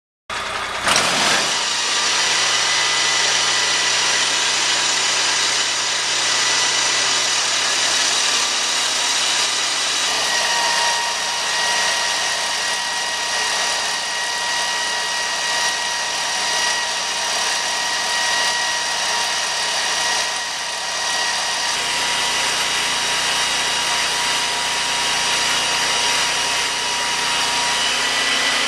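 Lucas portable sawmill running steadily while it saws a slab off a large log: a constant engine drone with a steady high whine over it.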